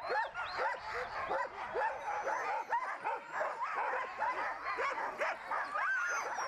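A pack of sled huskies yelping and barking at once, many short high calls overlapping without a break. It is the excited clamour of dogs being harnessed for a sled run.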